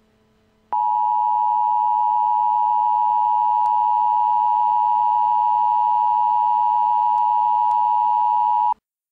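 Emergency Alert System attention signal: a steady two-tone alarm of about 853 and 960 Hz, starting about a second in, held for about eight seconds and cutting off abruptly. It announces an emergency alert message.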